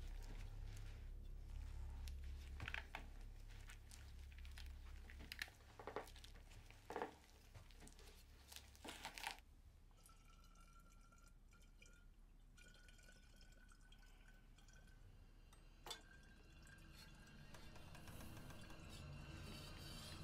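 Near silence: quiet room tone, broken by a few faint knocks and rustles in the first half and a single sharp click about sixteen seconds in.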